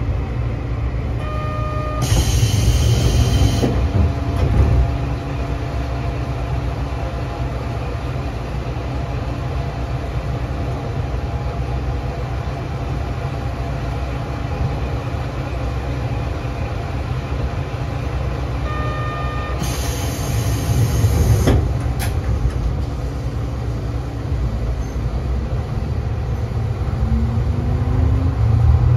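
Diesel railcar KiHa 3710 running along the line: a steady low engine and wheel rumble. Two short hissing bursts come about two and twenty seconds in, each just after a brief beep, and a rising tone sounds near the end.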